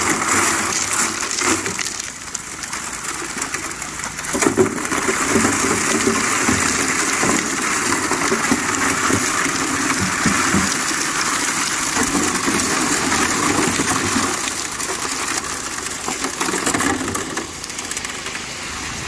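Water gushing from the spray bar of an Answer highbanker onto gravel and rock in its steel hopper, with a Honda water pump's engine running. Wet gravel and rocks are tipped in from a bucket partway through.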